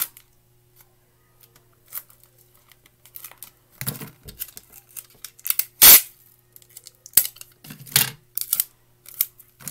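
Crinkling and rustling of a clear plastic bag of stuffing and a roll of tape being handled, in short separate bursts with a few sharp clicks; the loudest crinkle comes about six seconds in.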